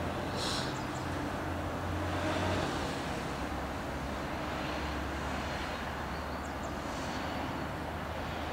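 Steady distant city traffic noise: a low, even hum with a faint hiss over it.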